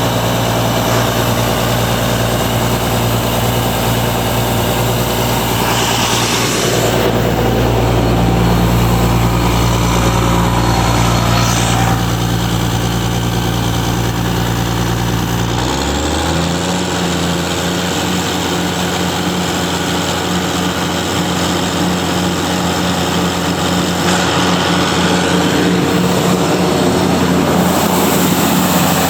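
Ingersoll-Rand 750 portable air compressor's diesel engine running steadily. Its engine tone shifts about seven seconds in and changes again with a sudden step about sixteen seconds in.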